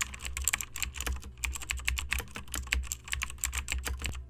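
Rapid typing on a computer keyboard, many keystrokes a second, over a steady low hum.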